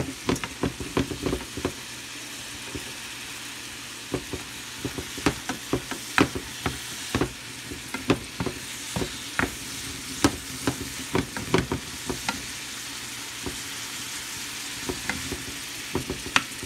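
Broccoli florets sizzling in butter and garlic in a frying pan, with a wooden spoon stirring them and knocking and scraping against the pan in runs of sharp clicks. The stirring pauses for a few seconds near the start and again near the end, leaving the steady sizzle.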